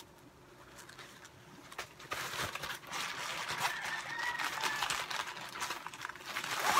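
A nylon drawstring bag and clear plastic wrap rustling and crinkling as a tripod is pulled out of the bag, starting about two seconds in and getting louder toward the end.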